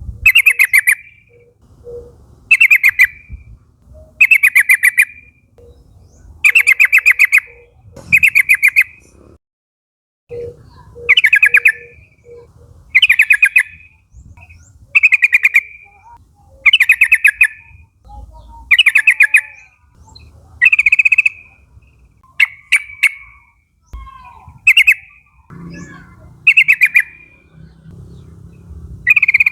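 Sooty-headed bulbul calling: short, loud chattering calls of fast repeated notes, one every second or two, with a brief pause about ten seconds in. The calls turn shorter and sharper in the last few seconds.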